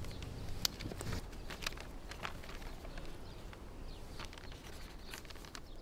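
Quiet outdoor background with scattered light clicks and ticks.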